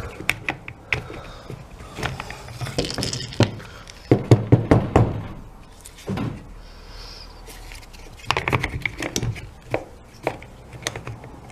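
Red plastic housing halves of a Milwaukee impact driver being handled, lifted off and pressed back together, with irregular clicks, clacks and knocks; the loudest cluster of knocks comes about four to five seconds in. The halves are not closing because the brush-card wires are too long to fit inside.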